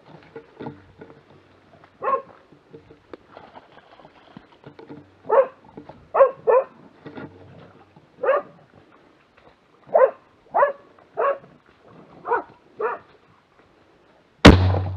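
Tracking dog barking at a wounded wild boar it is holding at bay, about a dozen barks at uneven intervals. Just before the end comes a single sharp, very loud gunshot: the finishing shot.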